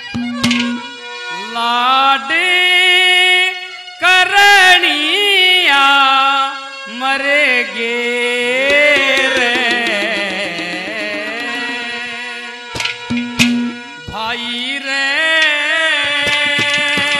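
Haryanvi ragni folk music: a male singer holding long, wavering melodic notes over banjo and ghadwa (clay pot drum) accompaniment, with sharp pot strikes coming in near the end.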